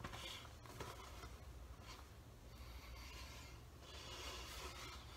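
Faint rubbing and rustling of a latex mask as hands adjust it on the wearer's head: a few soft scrapes, the longest about four seconds in.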